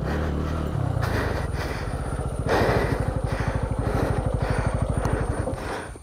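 Motorcycle engine running at low revs with a steady, even beat. About two and a half seconds in there is a short burst of rougher noise, and the engine sound fades out near the end.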